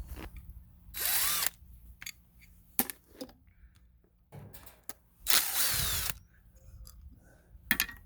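Power drill/driver running in two short bursts, the motor's pitch gliding as the trigger is worked, with a few sharp metallic clicks in between as parts are taken off the furnace.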